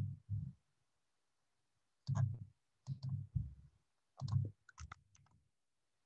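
Computer mouse clicking: a series of short, separate clicks spread across a few seconds, the last ones fainter.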